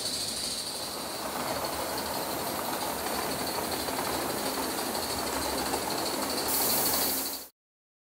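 Gauge 1 live-steam model train, an Aster DR class 03 locomotive hauling five coaches, running on the layout: steady rolling of metal wheels on the rails with a thin high whine. Near the end a louder hiss comes in, then the sound cuts off suddenly.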